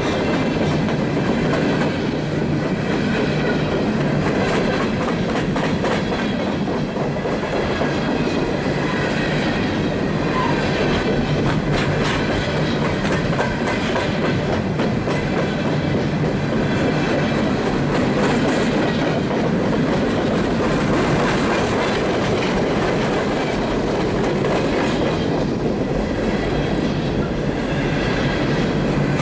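Freight train of open-top coal hopper cars rolling past close by: a steady rumble of steel wheels on rail, with a continual clickety-clack over the rail joints and a faint high-pitched squeal of wheels at times.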